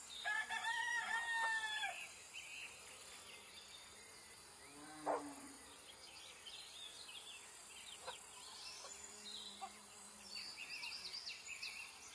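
Birds calling and chirping over a faint steady insect hum: a run of repeated arched calls in the first two seconds, one short sharp sound about five seconds in, then scattered high chirps.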